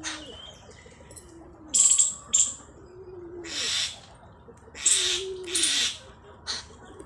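Birds in a poultry shed: repeated low cooing calls, with several loud, short rushing bursts and a few sharp chirps in between.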